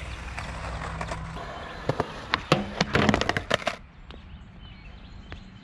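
Skateboard wheels rolling on concrete with a low rumble, then about two seconds in a run of sharp clacks and knocks as the board clatters for nearly two seconds before going quiet.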